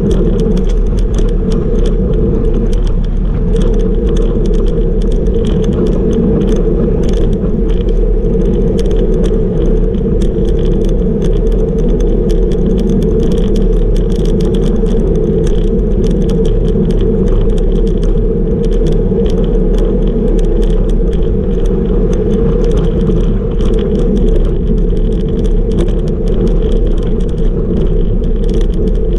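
Steady wind rush on a bike-mounted camera's microphone with tyre noise on asphalt, from a road bicycle riding at about 37 km/h. A constant light rattle of small clicks runs through it.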